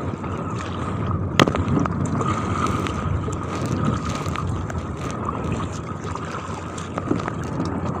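Strong wind buffeting the microphone over choppy sea water splashing around a kayak as it is paddled, with a sharp knock about a second and a half in.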